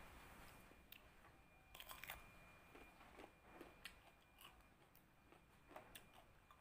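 Faint, irregular crunching clicks of someone chewing crisp Japanese cucumber.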